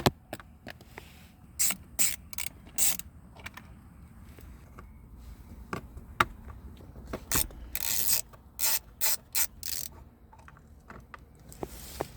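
Hand ratchet clicking in short bursts of strokes, mixed with scattered sharp clicks and knocks of tools.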